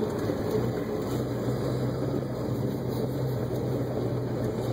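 Vehicle engine running steadily with rumbling tyre noise while driving on a dirt road.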